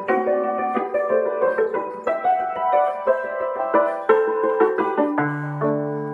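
Concert cimbalom (țambal) played with mallets: a quick run of struck, ringing notes in a classical sonata movement. Near the end it settles on a low note that is held and left ringing under a few quieter notes.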